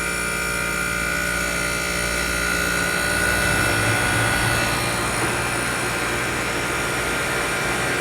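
A 1973 Gibson 8000 BTU window air conditioner running, its compressor humming steadily together with the fan.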